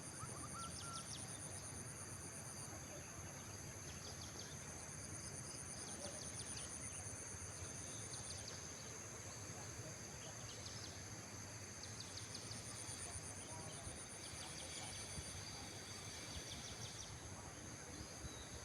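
Insects trilling and chirping over a steady outdoor background noise. A high, thin trill comes and goes in spells of a few seconds, with short runs of rapid chirps beneath it.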